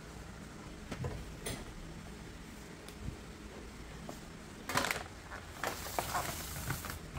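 A cloth wiping over a glass tabletop, with a couple of light knocks about a second in, then a louder brushing rustle about five seconds in and scattered rustling after it, over a low steady hum.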